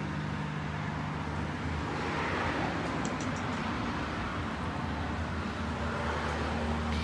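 Steady low hum of a running motor, with outdoor background noise.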